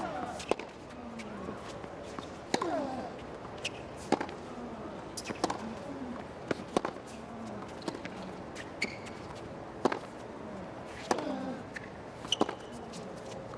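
Tennis rally on a hard court: sharp racket strikes and ball bounces about every second, some strokes followed by a short falling grunt from a player, over a steady crowd murmur.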